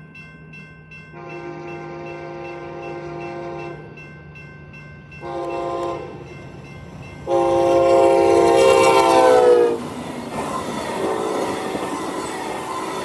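Amtrak passenger train's SC-44 locomotive sounding its horn for the grade crossing: a long blast, a short one, then a long, loudest blast whose pitch sags at the end as the locomotive passes, followed by the train rushing over the crossing.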